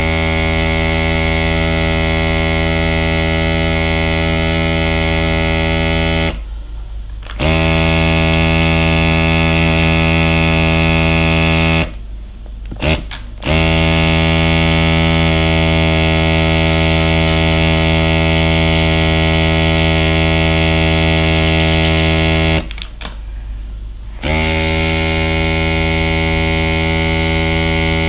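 Aerocolor battery airbrush pen's small air pump running with a steady buzzing hum as it blows ink off a felt-tip marker. It is switched off and back on three times, each gap lasting a second or so.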